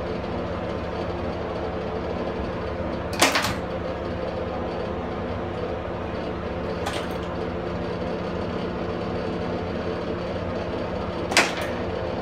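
Steady low hum with a noisy background, broken by three short sharp clicks: one about three seconds in, one about seven seconds in and one near the end.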